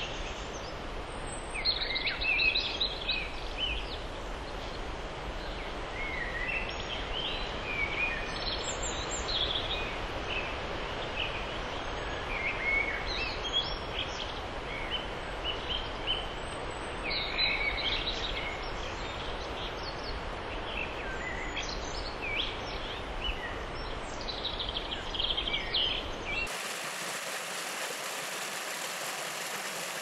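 Forest ambience: many small birds chirping and singing over a steady background hiss. Near the end it cuts abruptly to the rushing of a small stream tumbling over rocks.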